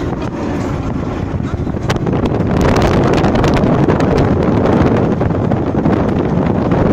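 Wind noise on the microphone and road noise from a moving car, filmed at a side window. The wind grows louder about two seconds in.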